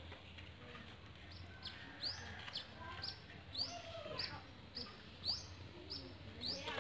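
A bird chirping repeatedly: a steady series of short, high, falling chirps, about two or three a second, starting about a second in.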